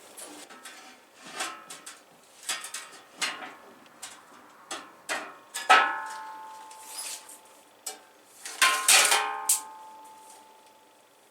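Metal parts and tools being handled: a string of clinks and knocks. Two louder metal clangs, about six and nine seconds in, ring on briefly.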